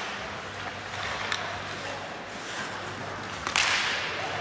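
Ice hockey game sounds in a rink: a steady background hiss with a light click about a second in, then a sudden loud scraping hiss about three and a half seconds in that fades over about a second.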